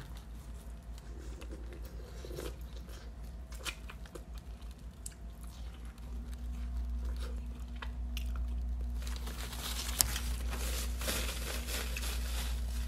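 Close-up biting and chewing of a boiled corn cob, kernels crunching in small clicks. Near the end a paper napkin rustles and crinkles as hands are wiped.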